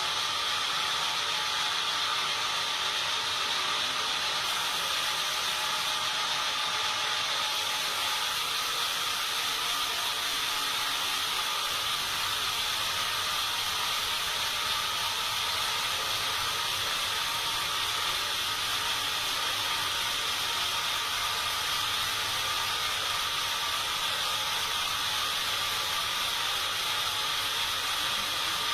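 Sawmill saw running steadily, a continuous high hiss that does not change or break.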